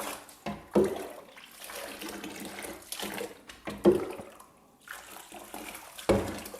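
Tap water running over a hen's feathers as she is rinsed, with several sudden louder splashes.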